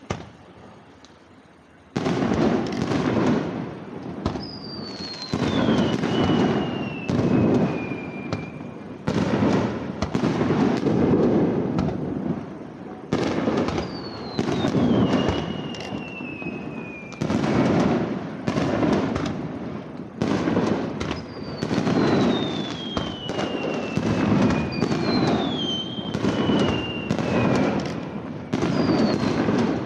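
Fireworks bursting in a dense barrage, starting about two seconds in: repeated booms and crackling, with several long whistles that fall in pitch.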